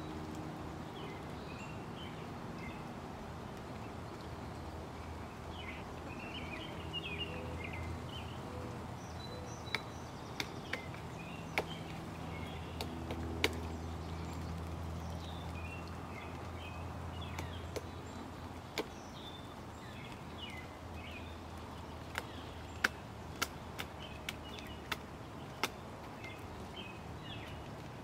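Pileated woodpecker hammering its bill into a decaying tree limb: sharp, irregular single knocks, a few about ten seconds in, then a quicker run of them near the end. Small birds twitter and a low steady hum sits underneath.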